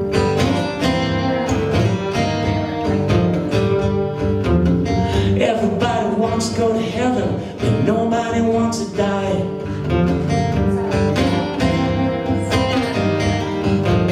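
Acoustic guitar strummed steadily through an instrumental break between verses of a song.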